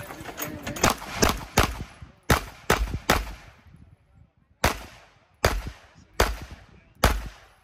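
A competitor's handgun firing a course of fire: a quick run of shots in the first three seconds, then a pause, then four single shots a little under a second apart. Each crack is followed by a short echo.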